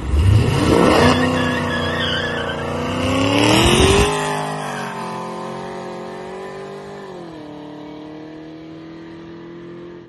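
Performance car with a freshly rebuilt automatic transmission and high-stall torque converter accelerating away hard: the engine note climbs for about four seconds, drops as the transmission shifts up, then holds a steadier lower note that fades away.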